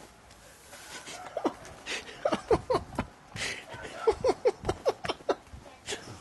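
A person laughing helplessly: a long run of short 'ha' pulses beginning about a second in, broken by gasping in-breaths.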